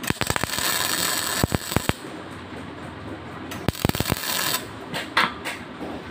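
Electric arc welding on stainless steel tubing: two short tack welds, each a spell of dense crackling and hissing from the arc, the first lasting about two seconds and the second about one second, followed by a few faint clicks.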